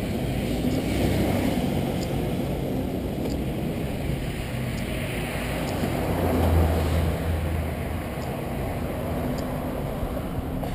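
Road traffic on a busy multi-lane avenue going past, a steady rush with one vehicle passing louder with a low rumble about six to seven seconds in.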